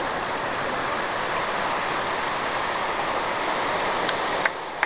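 Surf rushing over a cobble beach, a steady loud hiss. About four seconds in it drops away, and a few sharp clicks sound.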